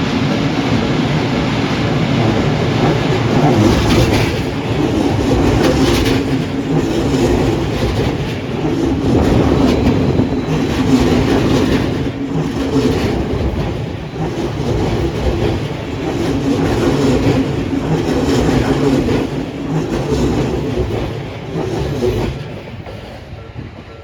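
Odakyu electric commuter train passing close by, its wheels clacking over the rail joints in a run of clicks over a steady low rumbling hum. The sound drops away shortly before the end as the train clears.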